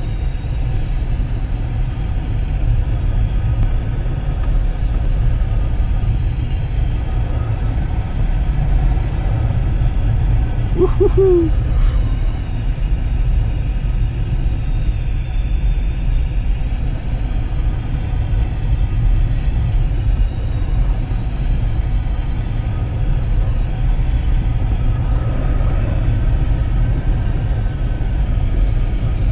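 Steady rush and low rumble of airflow around a glider's canopy in flight while thermalling, with one brief short chirp about eleven seconds in.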